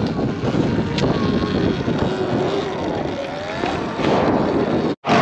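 Wind buffeting the microphone, a rough, rumbling rush with no clear engine note, as from a rider on the move. It cuts out abruptly near the end.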